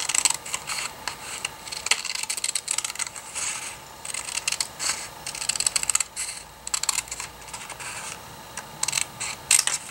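Small paper snips cutting through white cardstock in a run of short, crisp snips along a gentle wavy curve, with a few brief pauses between runs of cuts.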